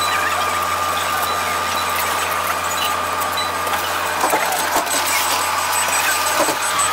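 City bus engine idling at a stop, heard from inside the cabin as a steady low drone with a thin steady tone above it. A few short knocks and clicks come around the middle and near the end.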